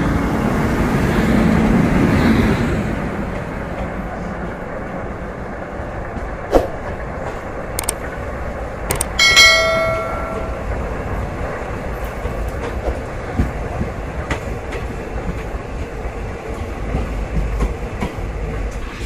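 Model train running past on metal track: a steady rumble of wheels with scattered clicks, loudest in the first few seconds as the steam locomotive goes by. About nine seconds in comes a short metallic ring.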